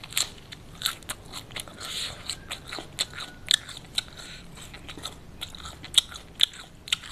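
Close-miked chewing of crunchy food, with many sharp, irregular crunches and crackles.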